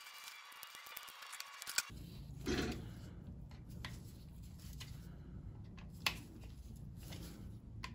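Sparse metallic clicks and ticks of sump bolts and a hex key being handled and started in their threads by hand, over a low steady hum.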